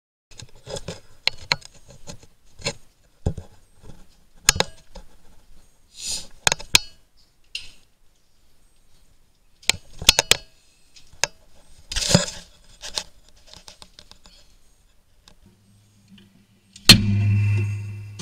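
Irregular clicks, knocks and jingling rattles of hands handling things in a tractor cab. Near the end a loud sudden thump is followed by a low hum that fades out within a second or two.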